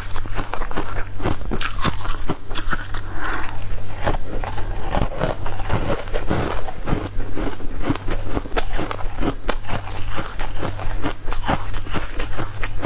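Close-miked crunchy chewing: a person biting and chewing a crisp yellow food, with many irregular sharp crackles, over a steady low hum.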